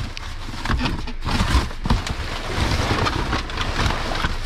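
Plastic bags and cardboard boxes rustling and crinkling as they are rummaged through by a gloved hand, with a few dull thumps about halfway through.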